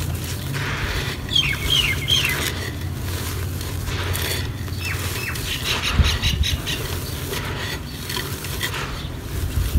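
Dry red soil being crushed and rubbed between the hands inside a terracotta clay pot: a soft, gritty crumbling and rustling with a steady patter of falling grains, and a sharper crunch about six seconds in.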